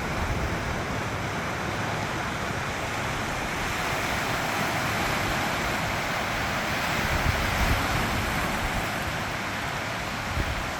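Sea waves washing steadily, swelling a little about halfway through, with wind gusting on the microphone.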